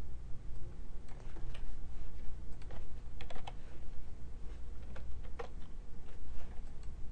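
Computer keyboard keystrokes and mouse clicks, sparse and irregular, over a low steady hum.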